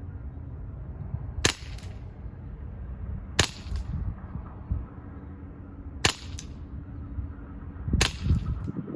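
Hatsan Sortie .22 calibre air pistol firing four single shots a couple of seconds apart, each a sharp crack with a short ring after it, over a steady low rumble.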